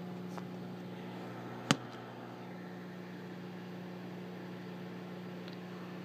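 Microwave oven running with a steady hum. A single sharp click about two seconds in.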